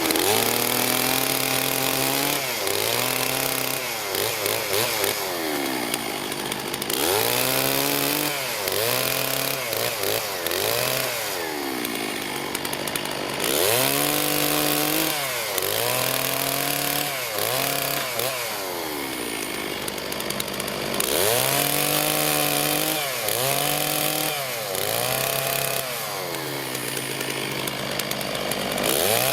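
Stihl MS 660 two-stroke chainsaw cutting firewood: the engine revs up, then its pitch sags as the chain bites into the wood, over and over in quick cuts. The cuts come in runs, with short lulls in between.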